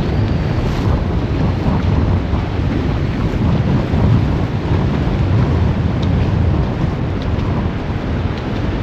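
Strong wind buffeting the microphone in a loud, steady low rumble, with surf breaking behind it.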